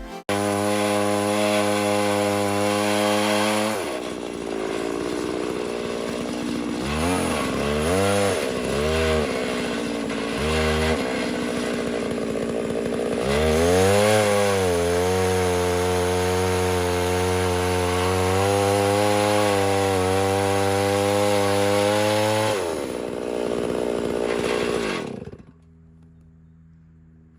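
Two-stroke chainsaw milling an oak log. It runs at high revs, drops back about four seconds in, and is blipped a few times. It climbs back to full throttle at about the halfway point and holds steady for several seconds, then winds down and cuts off near the end.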